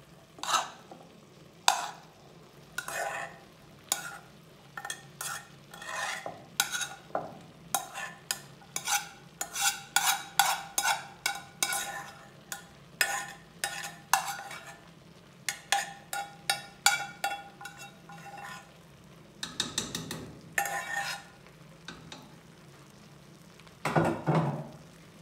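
A metal spoon scraping and tapping cooked rice out of a small saucepan into a pressure cooker: a quick, irregular run of clicks and scrapes against the pan, with a heavier clatter near the end.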